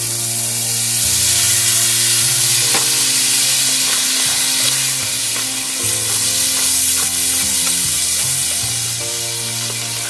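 Crab stir-frying with curry powder in a hot pan, sizzling steadily just after a splash of water went in, while it is stirred, with a few sharp knocks of the utensil against the pan.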